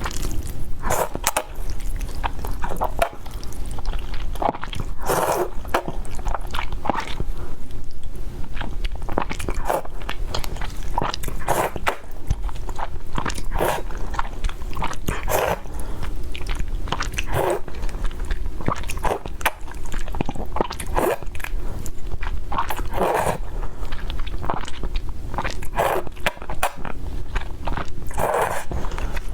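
Close-miked eating: a person biting and chewing food, with many short clicks and a steady run of bites every second or two.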